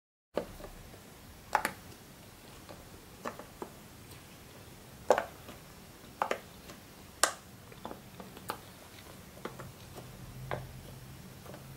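Silicone pop-it fidget toy, its bubbles pressed in one after another by fingertips, giving irregular soft pops with a few louder ones.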